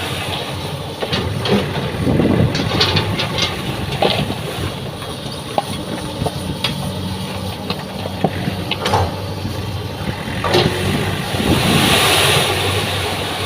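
Heavy diesel engine running steadily at idle, with scattered knocks and clanks and a brief burst of hiss near the end.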